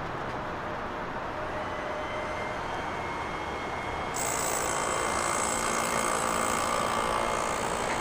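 Heavy diesel demolition machinery running steadily. About four seconds in it grows louder as a high hissing whine joins.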